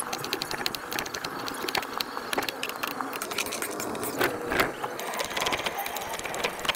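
Chef's knife chopping a red onion on a cutting board: a rapid, uneven run of sharp taps as the blade strikes the board.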